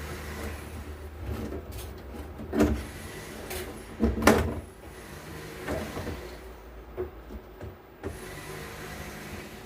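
Workbench handling sounds as a mixer is put back together: a few separate knocks and clicks, the loudest about four seconds in, over a steady low hum.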